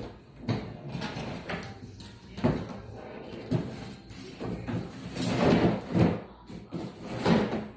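Plastic pet-door flap knocking and clattering as a small dog pushes through it, with a cardboard box scraping and bumping on a tile floor. Irregular knocks and scrapes, the loudest clatter a little over five seconds in.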